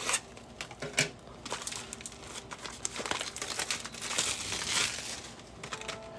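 Plastic wrapping crinkling and tearing as a sealed trading-card box is opened, with scattered sharp crackles that get busiest in the middle.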